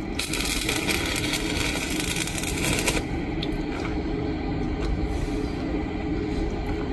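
Electric arc welding crackling as a steady hiss for about three seconds, then stopping, over a constant mechanical drone that carries on after it.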